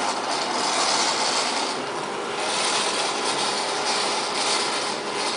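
Steady mechanical noise, an even hiss-like rush with a faint steady hum under it.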